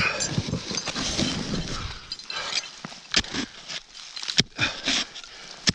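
Ice axe and crampons crunching and scraping in snow on rock as a winter climber moves up, with three sharp knocks in the second half as the axe or crampons strike.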